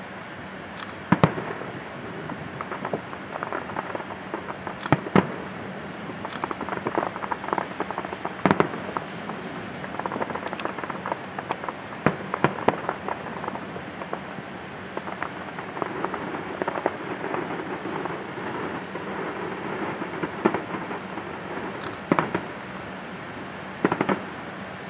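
A distant professional fireworks display: aerial shells bursting with irregular sharp bangs, several in quick succession at times, over continuous crackling from the bursts. The bangs echo off the surrounding buildings.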